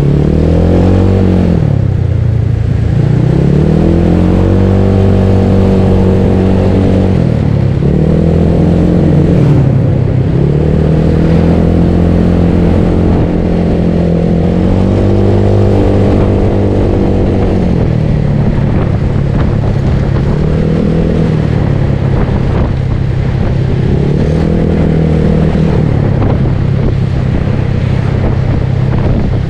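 Bored-up Yamaha Mio scooter engine running under way. Its pitch climbs as the throttle opens, holds, then drops as it eases off, about seven times over.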